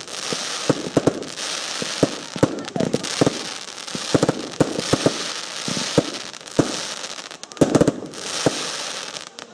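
Professional aerial fireworks: a rapid, irregular series of bangs from shells launching and bursting, several close together near the end, over a steady hiss.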